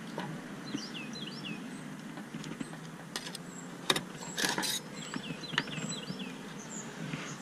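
Metal grill tongs and a carving fork click and clatter a few times while lifting a cooked chicken off a kettle grill's grate onto a wooden cutting board, with one louder clack a little before the middle. Small birds chirp in the background, in quick falling chirps.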